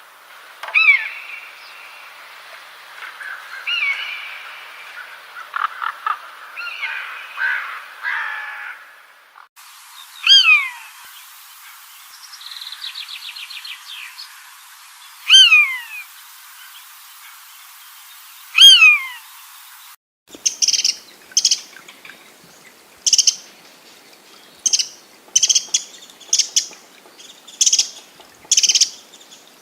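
Birds calling, in three spliced-together recordings: first a jumble of varied chirps, then loud downward-sliding whistled calls repeated every few seconds with a quick buzzy trill between them, then short high chirps about once a second.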